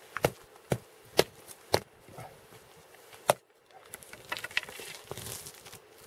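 Repeated sharp chopping blows, four about half a second apart and a fifth a second and a half later, typical of an ice chisel breaking the ice out of a frozen-over fishing hole. The blows are followed by a softer rustling scrape.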